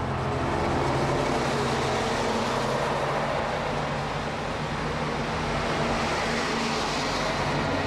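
KiHa 40-series diesel railcar pulling out close by: its diesel engine runs under power with a steady drone, mixed with the rumble of the car rolling over the rails.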